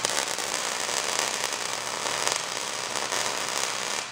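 MIG welder arc crackling steadily as a bead is laid, then cutting off suddenly at the end as the trigger is released.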